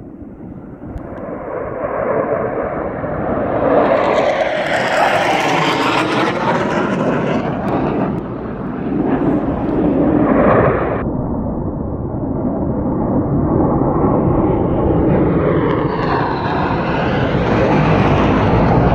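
F-15 Eagle fighter jets' twin turbofan engines during a low pass. The noise swells to a loud peak over a few seconds with sweeping tones as the jet goes by, and cuts off abruptly about eleven seconds in. A second jet's noise then swells loud again toward the end.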